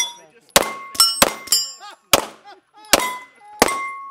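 Beretta 92XI Squalo 9mm pistol fired in an uneven string of about seven shots, each hit answered by the clang and ringing of steel plate targets.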